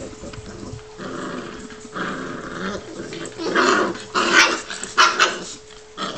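Newfoundland puppies growling as they play-wrestle, rising in the second half into several loud, sharp barks. It is play-fighting, not aggression.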